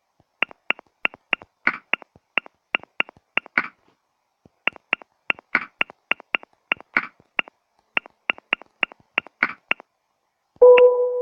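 Smartphone on-screen keyboard clicking as a message is typed, about three taps a second with a short pause a little before the middle. Some taps sound fuller than others. Near the end a short, loud low tone sounds.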